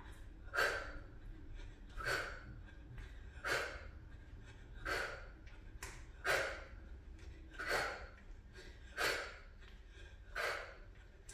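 A woman's sharp, forceful breaths out, one with each punch, eight of them evenly spaced about every second and a half.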